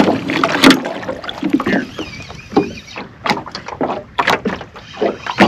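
Irregular knocks and clunks of handling in a small fishing boat, with gear bumping against the hull.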